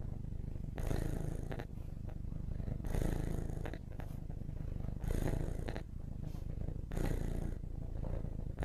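Domestic cat purring: a continuous low purr that swells louder about every two seconds.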